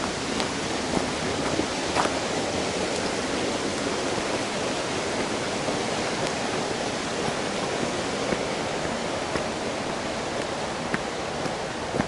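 Steady rush of flowing water, a mountain stream or waterfall, with a few faint steps on the trail.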